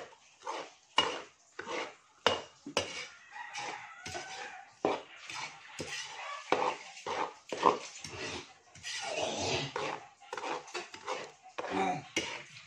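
Metal spatula scraping and knocking against a pan in quick, irregular strokes as flour is stirred dry over the fire, kept moving so it does not burn.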